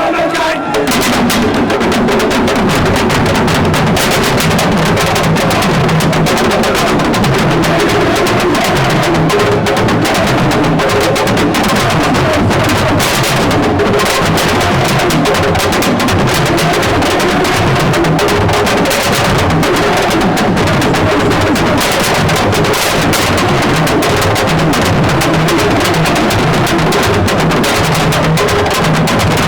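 Music of loud, dense drumming with other percussion, running on without a pause.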